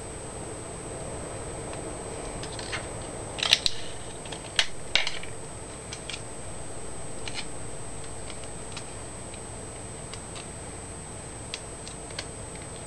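Hands handling a small paper cone dart on a straightened paperclip wire: a few crisp paper crinkles and clicks come together a few seconds in, then light scattered ticks. A steady hiss with a thin high whine lies under it all.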